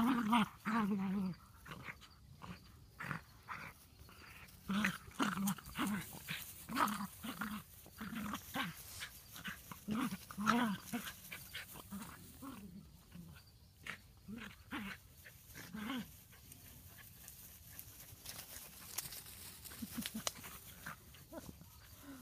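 Two small dogs, one a dachshund, play-fighting, giving short growls and barks in quick succession; they come thickly for the first sixteen seconds or so, then fewer and fainter. It is excited play, not aggression.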